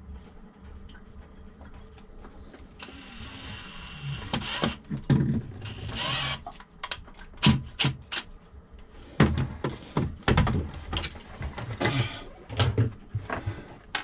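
Irregular knocks, clicks and scrapes of hands and a tool working in a sailboat's fiberglass bilge, screwing down and fitting the plastic bilge pump and float switch mounting bases. A short rasping noise comes about three seconds in, followed by a run of sharp clicks and knocks.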